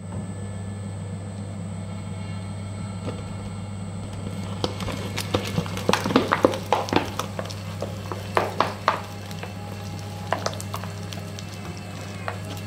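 Mini shredder running with a steady electric hum. From about four seconds in, its cutter blades tear through a paper box with a run of irregular crackles and snaps, thickest in the middle and thinning out about two seconds before the end.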